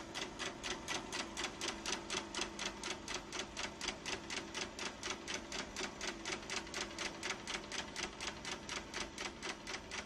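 Rapid, even clicking, about five clicks a second, over a faint steady hum.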